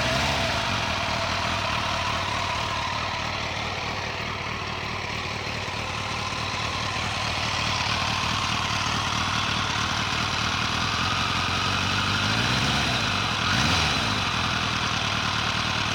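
Kawasaki GPZ900R inline-four engine idling steadily, with a brief blip of the throttle about three-quarters of the way through. This is the noise it makes after its chain tensioner was replaced with a ZZR1100 tensioner set one tooth up.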